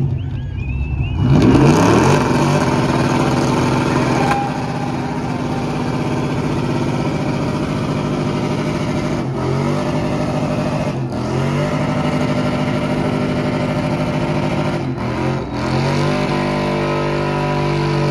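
A truck engine revs up hard about a second in and is held at high revs, dropping briefly and climbing back a few times, over a steady hiss.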